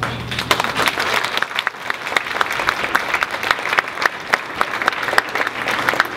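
Audience applauding: many people clapping at once, a dense run of hand claps.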